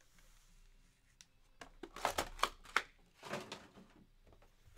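Wrapped trading-card packs being handled and set down in stacks on a table: a few short rustles and taps, in two clusters about two and three and a half seconds in.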